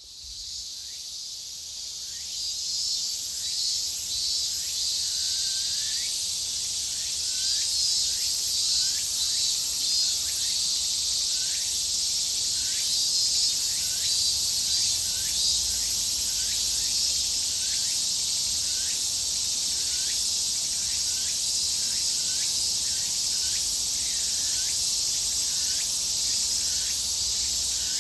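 Japanese cicadas singing in a dense chorus: a steady high sizzling drone with pulsing rhythmic calls and short chirps repeating through it, fading in over the first two seconds.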